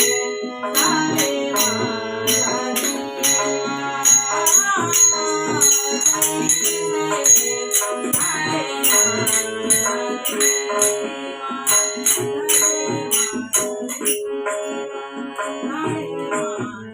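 Instrumental music with a steady beat of rattling, jingling percussion over sustained melodic notes, fading out near the end.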